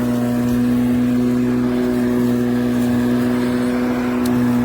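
LiTHELi 40V cordless brushless lawn mower running, its electric motor and spinning blade giving a steady, even hum with no change in pitch.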